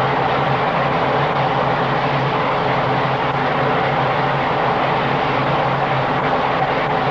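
Loud, steady machinery noise with a low hum and no breaks.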